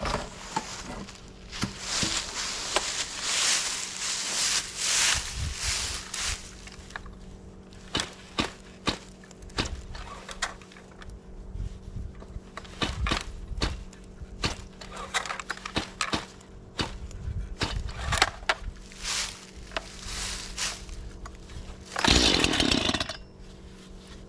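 Stihl MS171 two-stroke chainsaw being pull-started: a string of short, separate yanks on the starter cord, with a louder sputter of about a second near the end, but no steady running.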